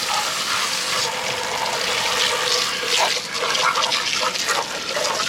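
Garden hose spraying water into and over the plastic parts of a Hoover carpet cleaner, rinsing the dirty-water tank and suction piece: a steady rush of water with irregular splashing.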